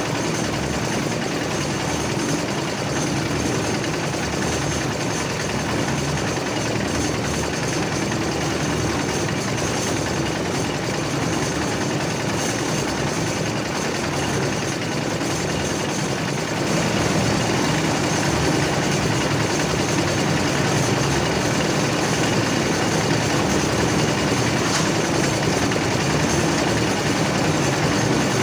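Concrete mixer's engine running steadily, its drum turning; the noise steps up a little past halfway and stays louder.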